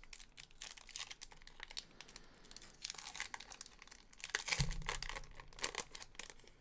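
Trading-card pack wrapper from a 2016-17 Donruss Optic basketball hobby box being torn open and crinkled in several crackly spells, with a dull bump about two-thirds of the way through.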